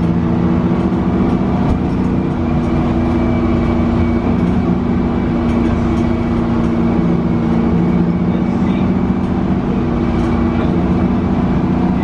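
Detroit Diesel 6V92TA two-stroke V6 turbo diesel of a 1990 Orion I transit bus running steadily under way, heard from inside the passenger cabin with road rumble underneath.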